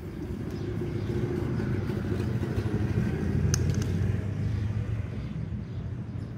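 A motor vehicle passing by: a low engine rumble that builds to a peak about halfway through, then fades.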